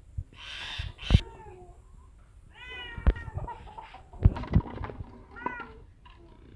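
An empty plastic bottle kicked and knocked about on dirt ground, giving several sharp clicks, amid short high-pitched cries.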